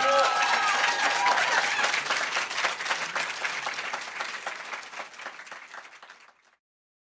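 Concert audience applauding and cheering, with a few whoops at the start, as a live song ends. The applause fades down and cuts off a little before the end.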